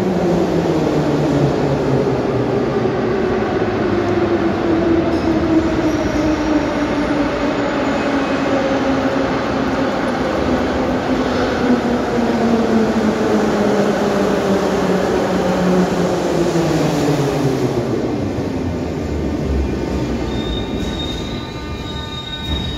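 An 81-717/714 'Nomernoy' metro train pulling into the platform and braking to a stop. Its motor whine falls steadily in pitch over a rumble of wheels on rails, with some wheel squeal, and dies away as the train halts. A steady high tone starts near the end as the train stands.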